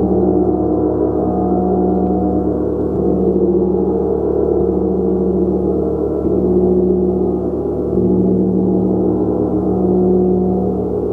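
Gong played continuously: a dense, sustained low humming wash of overlapping tones that swells every second or two as it is kept sounding.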